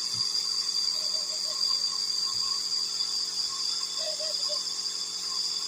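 Nebuliser running: a steady, high-pitched hiss and whine.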